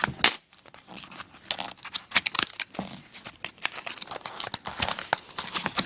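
Packaging being handled and opened, crinkling and tearing in irregular crackles, with a sharp snap just after the start.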